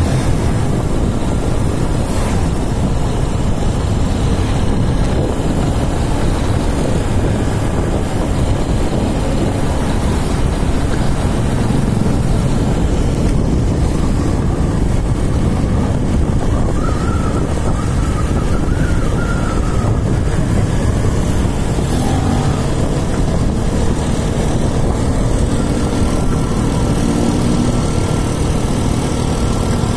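Riding noise from a moving motorcycle: a steady rush of wind on the microphone over the bike's running engine, heaviest at the low end.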